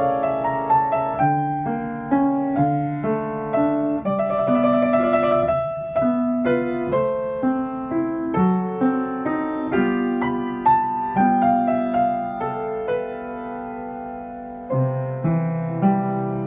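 Schimmel upright piano playing a nocturne: a flowing run of single notes over chords. It grows softer near the end, then a low chord is struck about fifteen seconds in.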